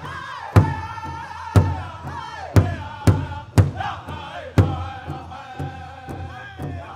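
Powwow drum group singing a high-pitched chant, holding long notes over the big drum, which is struck about once a second.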